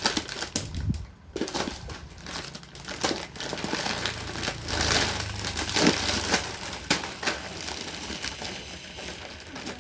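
Packaging crinkling and rustling as it is handled and opened, with irregular short crackles and clicks.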